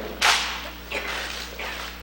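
Rifle drill team's rifles being slapped and caught by hand: one sharp, echoing slap about a quarter second in, followed by two fainter ones.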